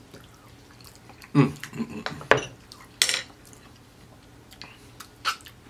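Close-miked eating sounds: a wooden spoon, a glass bowl of broccoli-and-cheese rice and the mouth taking a spoonful. About five sharp clicks and smacks are spaced out over a few seconds, the loudest in the middle.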